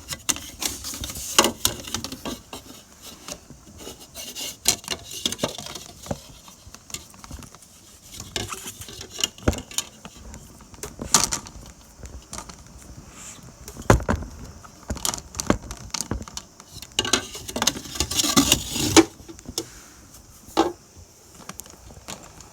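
Irregular clatter of hands-on assembly work: scattered clicks, knocks and rattling of hard parts, with a heavier knock about two-thirds of the way through and a longer rattle near the end.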